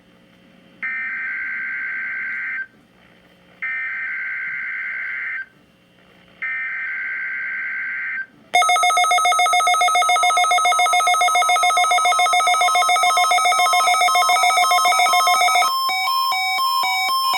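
Emergency Alert System SAME header on NOAA Weather Radio: three harsh, buzzing digital data bursts of about two seconds each, with short gaps between them. About eight seconds in, a louder, rapidly pulsing electronic alert tone starts. Near the end it changes to a quick run of stepping beeps.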